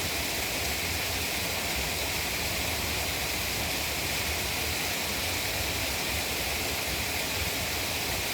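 Water running into a pond, a steady rushing hiss with a low rumble beneath it that stays unchanged throughout.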